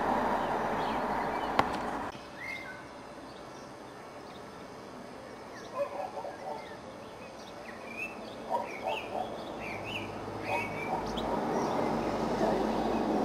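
Short, high bird chirps in scattered groups, mostly between about six and eleven seconds in. Before them a steady rushing noise with a sharp click drops away about two seconds in.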